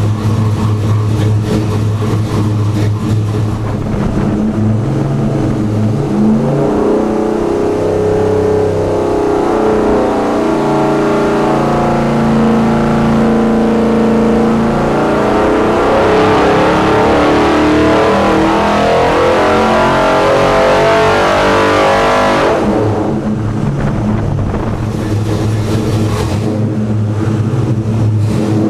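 Freshly rebuilt Chevrolet 327 small-block V8 with a roller cam, idling, then revving up with its pitch climbing steadily for about fifteen seconds before dropping suddenly back to idle.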